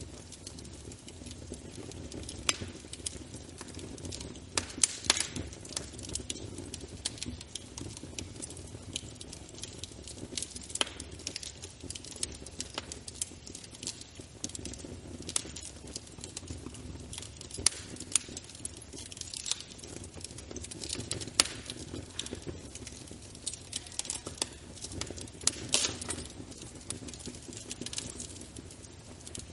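Wood fire crackling in a fireplace: a steady low rumble and hiss of burning, broken by frequent irregular sharp pops and snaps.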